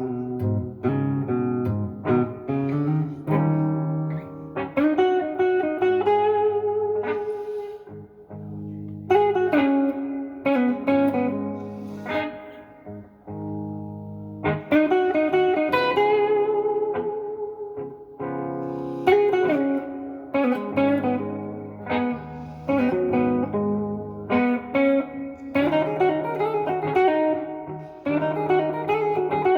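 Gibson SG Special electric guitar on its neck pickup, through a Blues Junior IV amp with overdrive, delay and reverb, playing slow blues lead phrases with bends and vibrato over a looped rhythm backing.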